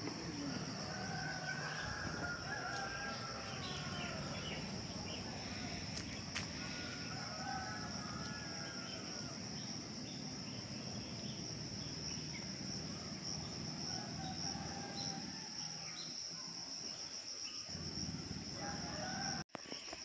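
Steady high drone of insects in the forest, with a rooster crowing three times, each a long rising-and-falling call, about a second, six seconds and fourteen seconds in.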